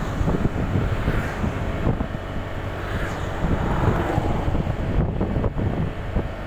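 Wind buffeting the microphone of a moving motorcycle, over the motorcycle's engine and road noise.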